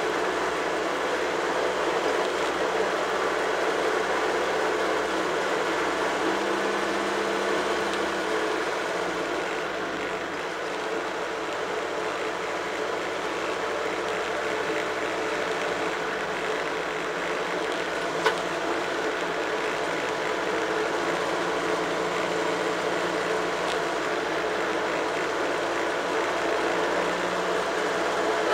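Tractor engine running steadily on the move, heard close from on board the tractor itself. A single sharp click about two-thirds of the way through.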